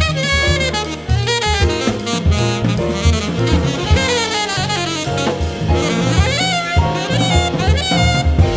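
Small jazz group playing live: a saxophone plays fast, winding runs over bass, piano and drum kit.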